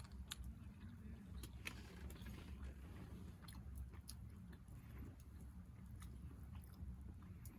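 Faint chewing and biting sounds, with scattered small crunchy clicks over a steady low rumble.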